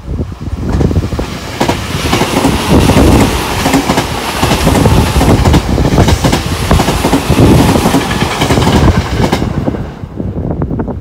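Electric commuter train passing close by: a rapid clatter of wheels over the track that builds over the first two seconds, holds loud, and falls away about nine and a half seconds in.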